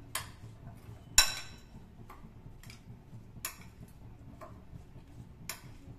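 Metal spoon clinking against a glass bowl while stirring chopped vegetables with salt and chaat masala: a string of separate clicks, the sharpest about a second in.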